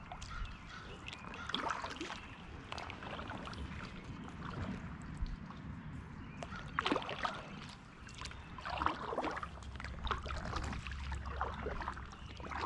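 Kayak paddle strokes dipping and splashing in shallow river water, irregular splashes over the trickle of water moving past the hull against a light current.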